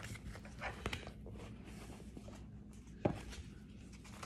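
Faint rustling and tapping of large photo sheets in plastic sleeves being handled and turned over on a table, with one sharper tap about three seconds in.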